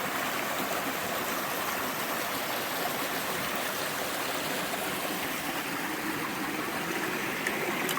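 Stream water running, a steady, unbroken rush of flowing water.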